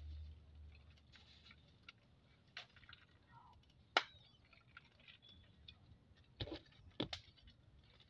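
Sparse sharp clicks and knocks over a quiet background: one loud click about four seconds in, and two heavier knocks about a second apart near the end. A low rumble dies away in the first second.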